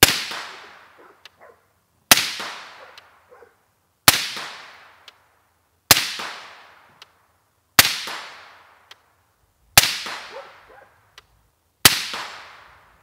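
Seven suppressed shots from a .223 AR-15-style rifle with a 16-inch barrel and a Yankee Hill Machine Resonator suppressor, fired about every two seconds, each with a short fading echo. About a second after most shots comes a faint distant tick, the bullet striking a steel target.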